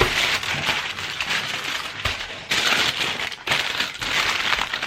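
Aluminum foil crinkling and crackling as it is pulled out and handled, a continuous run of small sharp crackles.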